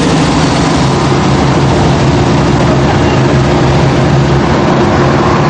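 An engine running steadily, a low drone with a constant hum that neither rises nor falls.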